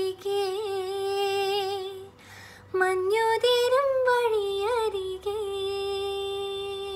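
A woman singing unaccompanied, holding long notes with vibrato. There is a short breath about two seconds in, and the final note is held and fades out near the end.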